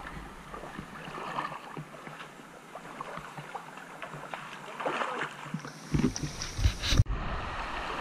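Feet splashing and sloshing as people wade across a shallow, rocky river, over the soft rush of the flowing water. About seven seconds in, the sound cuts to a steadier rush of a stream running over rocks.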